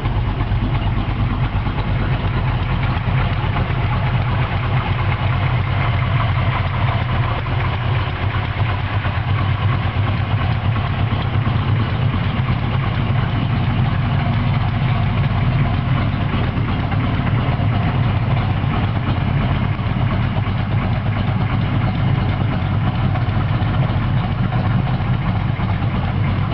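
A 1965 Chevrolet C10 pickup's engine idling steadily, with no revving.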